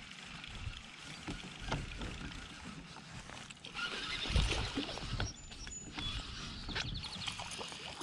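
Outdoor boat noise from a fishing session: wind on the microphone and light water movement, with the clicks and whirr of a baitcasting reel being cranked. About four seconds in a louder rush of wind and a low thump come as the rod swings out.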